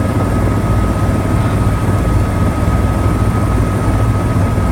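Helicopter running steadily: a loud, even low drone with a thin, steady high whine over it.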